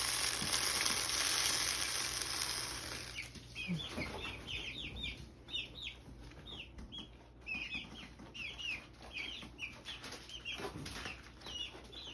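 Young chicks peeping, many short high chirps in quick, irregular succession, clearest from about three seconds in. Over the first three seconds a steady hiss of noise fades away.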